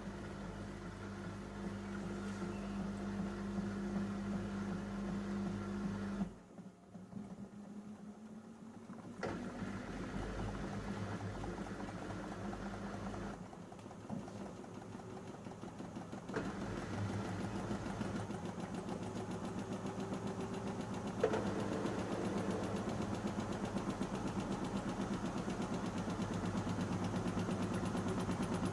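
Panasonic NA-147VB2 inverter washing machine's drum motor running steadily, stopping twice for a few seconds and starting up again, with one knock from the drum about 21 seconds in.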